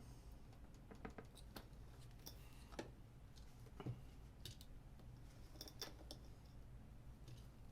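Near silence over a faint low hum, broken by scattered faint clicks of hand tools and wire being handled.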